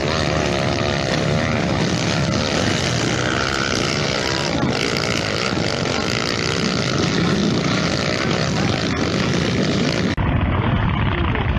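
Dirt bike engines running hard under load up a steep hill climb, their pitch wavering up and down as the riders work the throttle. The sound changes abruptly about ten seconds in.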